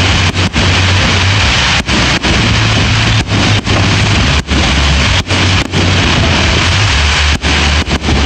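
A dense, continuous barrage of aerial firework shells bursting overhead as one unbroken rumble, so loud that the recording distorts.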